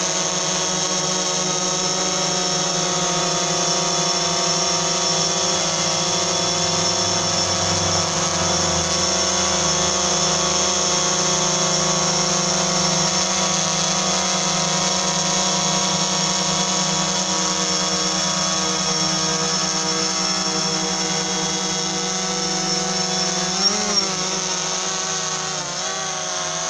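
DJI Phantom 3 Standard quadcopter's motors and propellers whining steadily in flight. Near the end the pitch wavers briefly and there are two short bumps.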